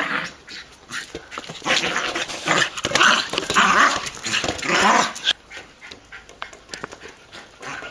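Small dog growling in several noisy bursts while it chases a plastic beach ball, going quieter after about five seconds.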